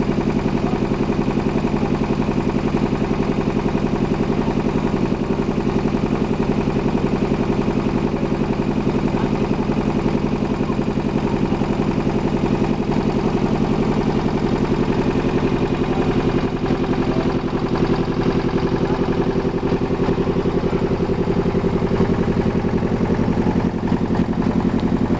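A wooden ferry boat's engine running steadily under way, a constant throbbing drone that holds one pitch.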